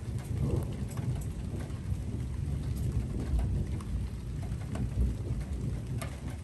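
Thunder rolling in a long, deep rumble during a thunderstorm, with scattered raindrops ticking close by.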